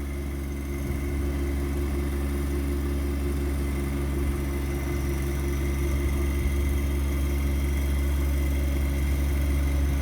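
John Deere 1025R compact tractor's three-cylinder diesel engine running steadily under load as it pulls a mini hay baler, with a strong low hum, gradually getting a little louder.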